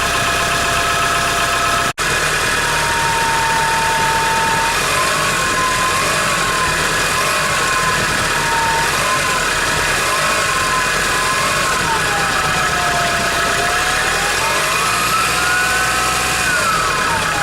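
Hyundai Grand Starex engine running cold with its turbocharger whistling: a thin whistle that wavers up and down in pitch, climbs higher about fifteen seconds in, then glides back down over the steady engine noise. The sound cuts out for an instant about two seconds in.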